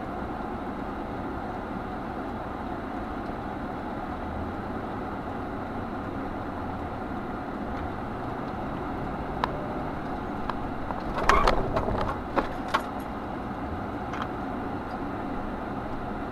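Steady car engine and road noise inside the cabin as the car pulls away and drives along. A quick cluster of sharp clicks and knocks comes about eleven to thirteen seconds in.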